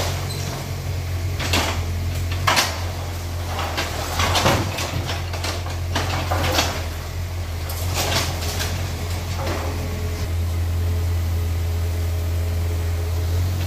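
Yanmar mini excavator's diesel engine running steadily while its bucket breaks down brick walls, with about seven crashes and clatters of falling masonry and rubble in the first ten seconds; the last few seconds hold mainly the engine.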